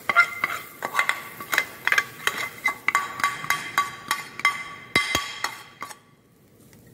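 A steel ladle scraping and knocking a pan to empty the sautéed vegetable filling into a stainless-steel bowl, with a quick run of ringing metallic clinks and knocks. There are two heavier knocks about five seconds in, and the clatter stops near the end.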